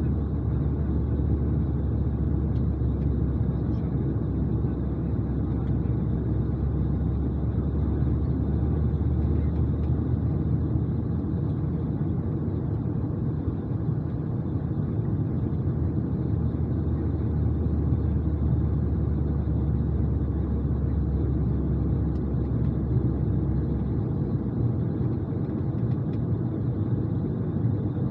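Steady low rumble of an Airbus A220's engines and airflow, heard inside the passenger cabin, with a faint high tone over it; the deepest part of the hum shifts slightly near the end.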